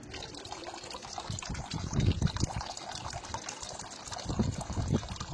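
A thin stream of water from a small pump's outlet tube pouring into a partly filled plastic bucket, splashing and trickling steadily. Uneven low rumbles swell about two seconds in and again near the end.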